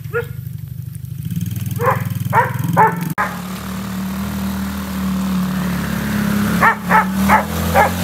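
A small four-wheeler (ATV) engine runs steadily while a dog chasing it barks: three barks about two seconds in, then a quick string of barks from about seven seconds on.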